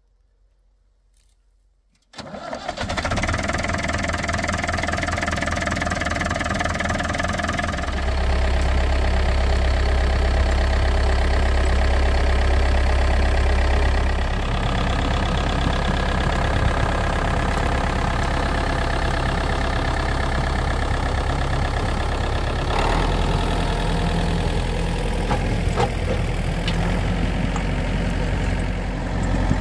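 Case farm tractor's engine running, coming in suddenly about two seconds in. Its note grows louder and deeper from about eight seconds in, then eases back after about fourteen.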